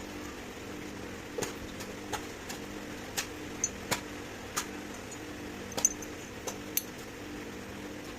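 Light metallic clicks and clinks at uneven intervals, about a dozen, starting about a second and a half in, over a steady machine hum with a pulsing low tone.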